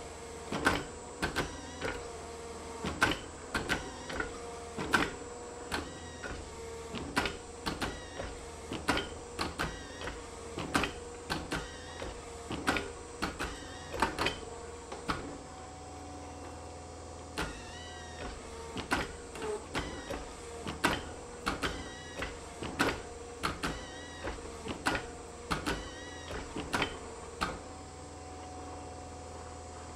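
Hydraulic forging press running with a steady motor hum while it squeezes a red-hot steel billet. Many sharp clicks and cracks come about twice a second, with a few brief squeaks in the second half.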